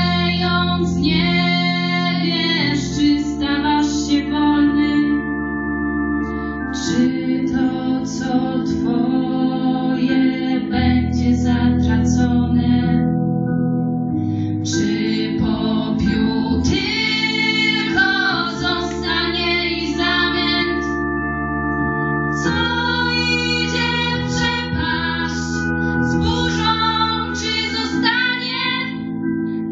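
Two female voices singing a song together in phrases with held notes, over sustained instrumental chords.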